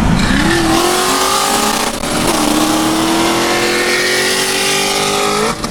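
5.0 V8 Mustang engine pulling hard at full throttle, its pitch climbing through a gear. It drops for a quick upshift about two seconds in, then climbs again until another shift near the end.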